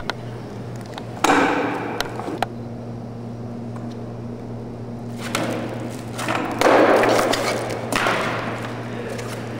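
A sudden thud about a second in, then a longer stretch of scraping, swishing noise from about five seconds on. These are the thumps and movements of a performer handling a long rod, over a steady low hum.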